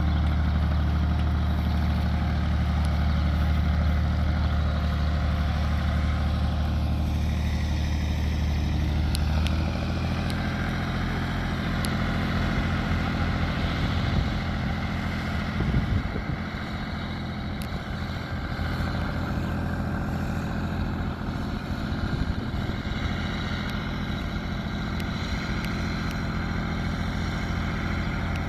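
Farm tractor engine running steadily while it tows a flatbed trailer; the engine note changes about ten seconds in.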